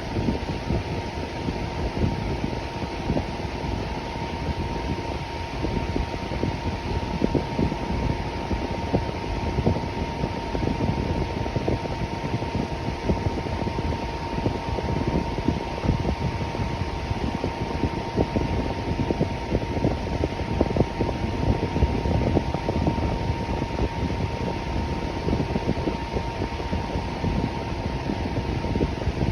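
Electric fan running steadily: an even rush of air with a fine rapid flutter and a thin, steady whine over it.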